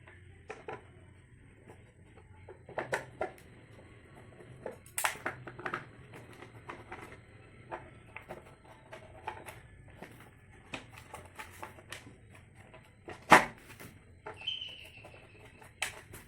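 Scattered clicks and knocks from unscrewing and handling an induction cooker's plastic casing, with one sharp knock about 13 seconds in and a brief high squeak shortly after.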